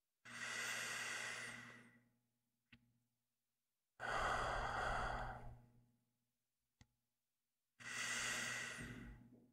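A man's slow, deep sleep breathing close to the microphone: three long breaths about four seconds apart, with a faint click between them.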